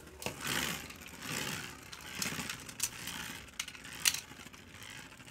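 Beyblade Burst tops spinning in a plastic stadium. A hazy whirr and scrape swells and fades, with a few sharp clicks about three and four seconds in.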